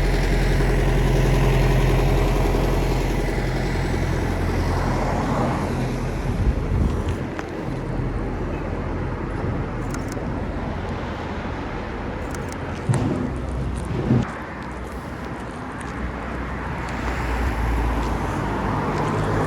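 Road traffic: car engines running and passing, fading about a third of the way through and building again near the end, with a few short knocks in between.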